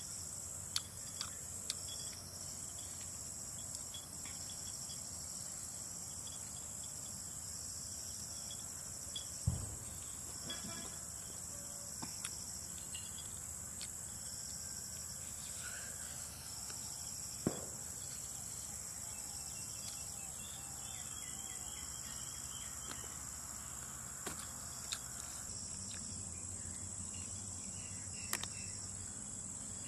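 Insects buzzing steadily at a high pitch, with a second high note pulsing about every two seconds. A few sharp clicks or knocks cut in, the loudest about a third of the way in and another just past halfway.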